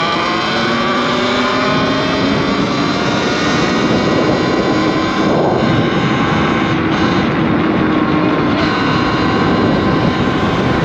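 Talaria Sting R MX4 electric dirt bike being ridden at speed: the electric motor's whine rises in pitch over the first couple of seconds, then holds fairly steady, under heavy wind rush on the microphone.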